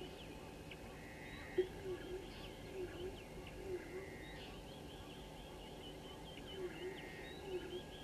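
Wild birds calling: a low call note that dips and rises in pitch, repeated about six times with gaps, over many quick high chirps and a few short whistles.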